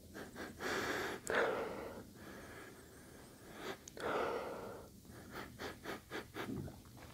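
A person sniffing a chili pepper held under the nose: two long breaths in through the nose, then a quick run of short sniffs near the end.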